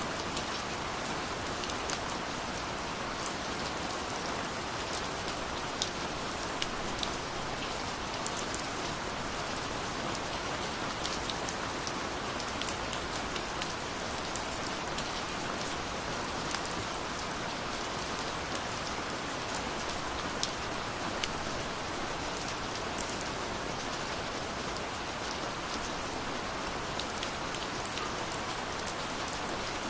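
Steady rain falling: an even hiss with many separate drops ticking sharply through it.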